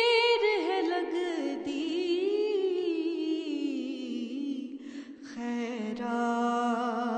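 A woman singing a Punjabi naat, drawing out one long, wavering note that slowly sinks in pitch. After a short break about five seconds in, a lower, steady sustained tone follows.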